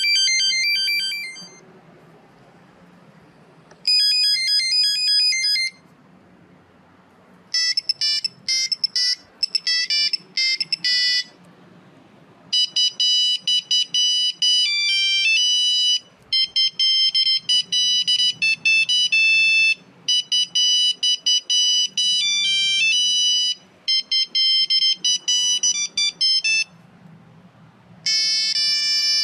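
Electronic mobile-phone ringtone melodies of the Nokia kind, a string of short beeping tunes played one after another with brief pauses between them.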